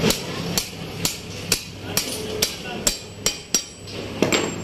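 Hammer blows on a steel tubular drift, driving a ball bearing down onto a motorcycle crankshaft: about ten sharp metallic strikes, roughly two a second.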